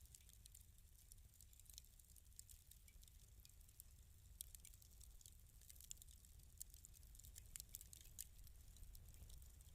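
Wood fire in a fireplace crackling softly: irregular quick pops and snaps over a low, steady rumble.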